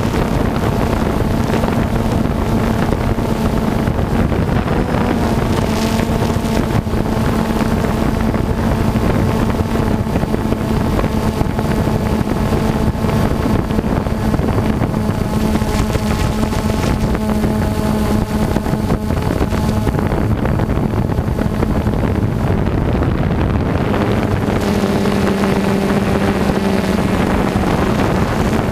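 Quadcopter drone's motors and propellers humming steadily, mixed with wind noise on the microphone. The pitch of the hum shifts slightly about five seconds in and drops a little near the end as the drone manoeuvres.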